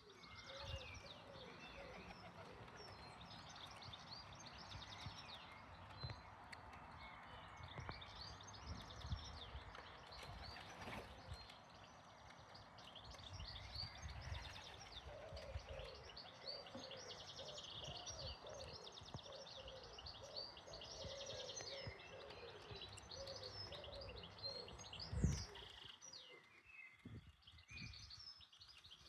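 Outdoor birds chirping continuously: many quick high chirps together with lower, repeated warbling calls, over a low background rumble. One sharp thump stands out near the end.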